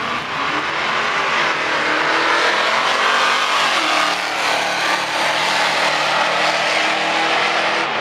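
Drag-racing cars accelerating hard down the strip, engines at full throttle with the pitch climbing, dropping at a gear change about four seconds in, then climbing again.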